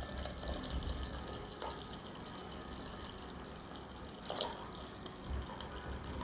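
Warm milk poured in a steady stream into an unglazed clay pot, trickling and splashing softly as the pot fills, with two faint taps in the second half.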